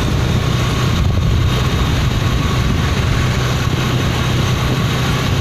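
Motorcycle engine running steadily while riding, with wind and road noise rushing over the microphone.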